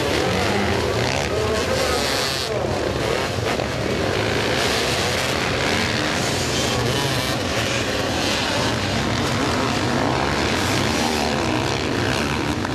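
Many motocross motorcycle engines racing together on a dirt track, a steady, dense engine noise from the pack.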